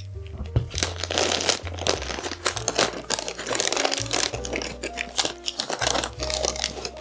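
Crinkly wrapping being handled and pulled off a candle in a fast, irregular run of rustles and crackles, over soft background music.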